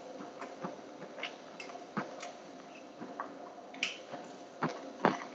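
Faint, irregular small clicks and soft wet sounds of someone eating: food picked off a plate by hand and chewed.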